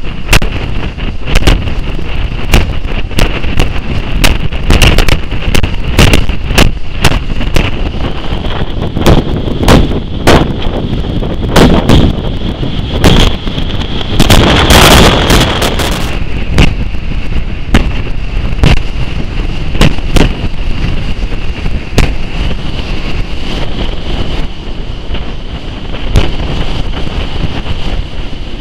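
Steam-hauled train running at speed, heard from an open window just behind the locomotive's tender: a clatter of sharp, irregular beats over a steady high squeal, with wind on the microphone. About halfway through the noise swells into a louder rush as the train passes close to a stone wall.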